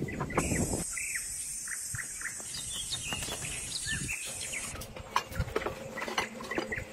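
Outdoor ambience: many short bird chirps over a steady high insect drone, which cuts off about four and a half seconds in, leaving a few light clicks.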